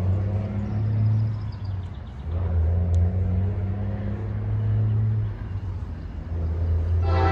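Low steady rumble of the diesel locomotives on an approaching Norfolk Southern freight train, heard between horn blasts. The locomotive horn sounds again just before the end.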